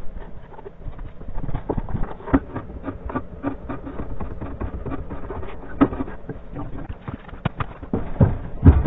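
A fast, irregular clatter of knocks and clicks from hand tools and metal brace parts being worked on, with a heavier thump near the end.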